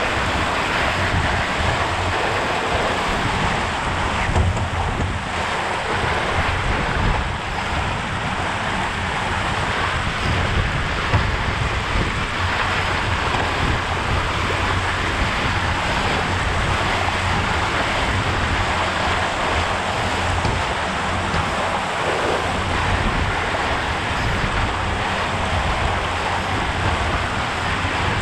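Water rushing and hissing along the hull of an RS K6 sailboat sailing fast, with bow spray, under a steady low rumble of wind buffeting the microphone.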